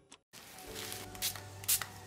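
Soft background music fades in after a brief moment of silence, with a few light knocks and rustles as a packaged box is handled on a desk.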